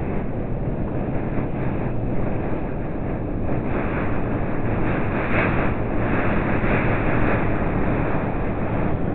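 Blizzard wind blowing hard, a steady deep rumble with gusts that swell and hiss louder about midway through.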